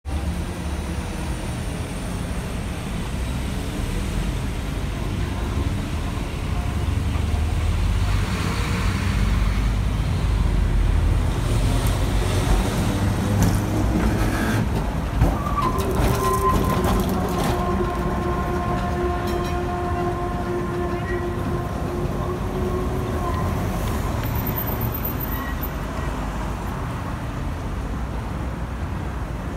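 Historic tramcar TW 80 rumbling along its street rails as it approaches and passes close by, with a single clunk as it goes past. Right after it passes, a steady squeal holds for several seconds as it moves off along the curving track, over city traffic.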